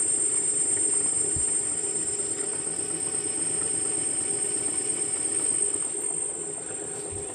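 Xiaomi M365 electric scooter's rear hub-motor wheel spinning with a steady whine and a rattly, ticking noise, easing off a little toward the end. The owner suspects the noise comes from a worn wheel bearing.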